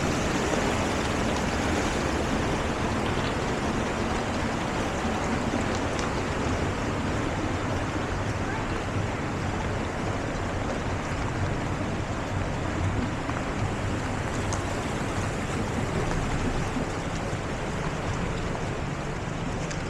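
Small waterfall: a steady rush of water sliding over rocks.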